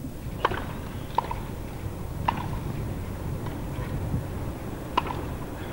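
Tennis ball struck back and forth with rackets in a rally: a handful of sharp pocks at uneven intervals, four of them clear and a few fainter, over a low steady hum.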